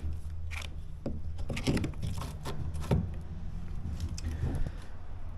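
Irregular knocks and crunches of rotten boat-transom core wood being broken and picked apart, the wood gone soft and riddled with holes from rot or borers, over a steady low hum.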